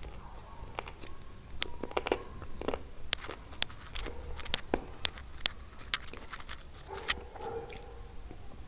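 Close-miked chewing of chicken wings and stewed eggplant: wet smacking with many short, sharp mouth clicks at an uneven pace.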